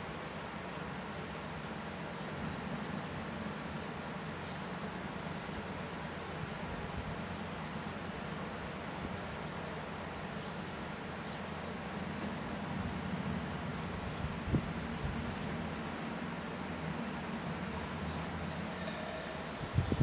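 Sparrows chirping in quick runs of short, high chirps that come and go in several bouts, over a steady low background rumble.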